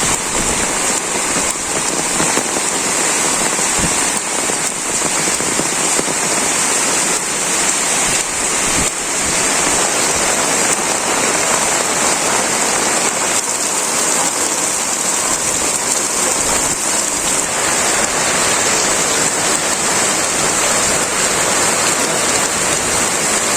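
Heavy rain pouring steadily, a dense even hiss with a few sharper drop hits here and there.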